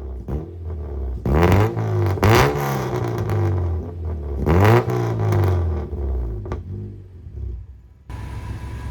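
Honda Civic's four-cylinder engine being revved in three quick throttle blips, each rising and falling back, then settling and fading toward idle; the sound switches abruptly to a steady idle near the end. The exhaust leaks have just been welded.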